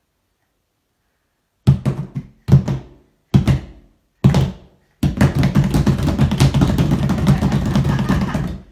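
Several people slapping upturned plastic flexi tubs with their hands as drums: a few separate hits starting about a second and a half in, then from about five seconds a fast, continuous roll of drumming that stops suddenly near the end.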